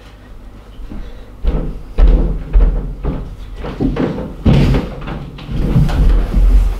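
A run of heavy thumps and knocks, uneven and getting louder from about a second and a half in, most likely footsteps thudding on the wooden staircase.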